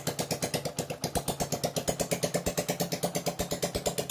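Hero CD Deluxe's single-cylinder four-stroke engine idling steadily with the silencer removed: an even, rapid chuffing of about ten exhaust pulses a second. This is its first run after a top-end rebuild to cure oil burning and white smoke.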